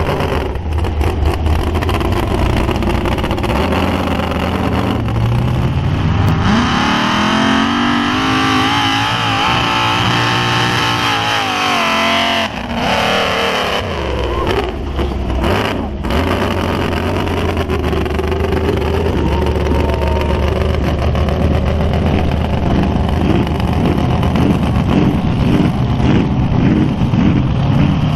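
Big engine of a lifted mud-bog truck running loud under load. It revs up hard a few seconds in, holds high for several seconds, then drops back to a lower, uneven throttle.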